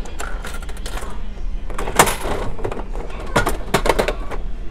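A coin-operated gachapon capsule-toy machine being worked: scattered sharp mechanical clicks as coins go in and the crank is turned. The loudest knock comes about two seconds in, and a quick run of clicks follows near the end.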